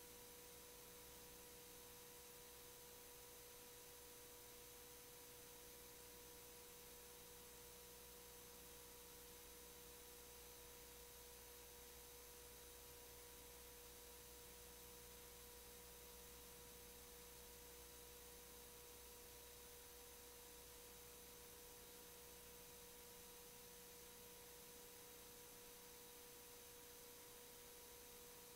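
Near silence: a faint, steady, unchanging tone with a light hiss.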